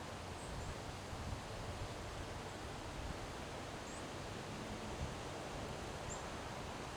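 Windstorm wind blowing steadily through trees, with leaves rustling and low rumbling buffets on the microphone. A few short, faint high chirps come through now and then.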